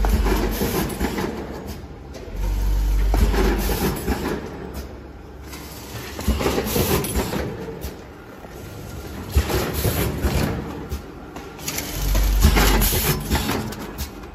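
Vertical form-fill-seal packing machine with auger filler running through its bagging cycles: a low hum swells and fades in surges of a second or two, with mechanical noise and scattered sharp clicks and knocks.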